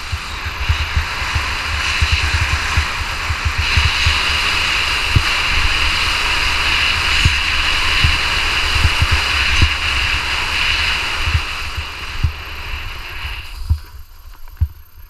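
Skis sliding over snow: a steady scraping hiss that grows louder about four seconds in and fades near the end. Underneath is a low, uneven rumble with knocks from wind buffeting the action camera's microphone.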